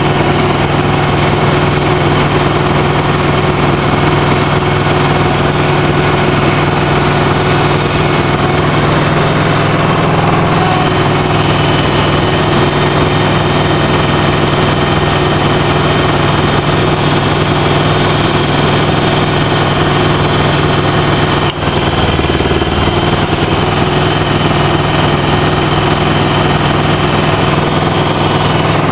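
Aquatic weed harvester's engine running steadily at a constant pitch, with one brief dip about three-quarters of the way through.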